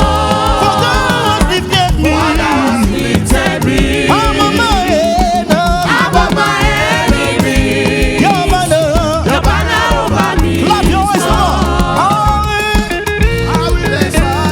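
Live church worship band playing an upbeat gospel praise song, with a steady beat, bass and keyboard, and singing over it.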